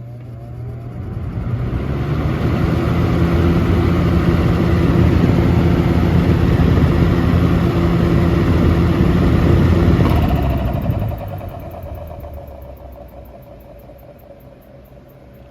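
Box fan started on its high setting: the motor hum and the rush of air build up over the first few seconds, run steady, then the fan is switched off about ten seconds in and winds down, fading away.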